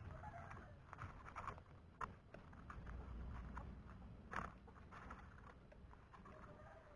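Faint, irregular knocks and clicks over a low rumble, with the sharpest knocks about two seconds in and again a little past four seconds.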